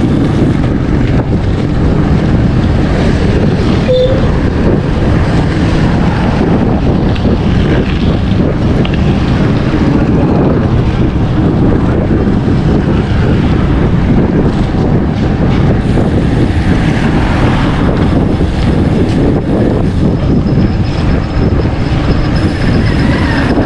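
Steady wind rush buffeting the microphone of a camera carried on a moving bicycle.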